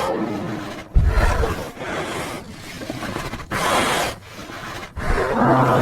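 Brown bear growling and roaring in a string of rough calls about a second long, each broken off by a short pause. A deeper, more pitched growl starts near the end.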